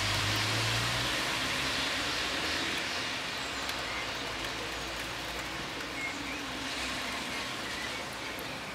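Steady outdoor background rush with no clear single source, a low hum in the first second, and a few faint short chirps.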